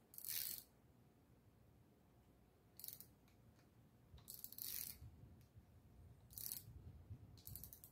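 Light metallic rattles and clinks, about five short ones, from a pushrod V8's rocker arms and pushrods being wiggled by hand to feel for valve lash play during a hydraulic-lifter valve adjustment.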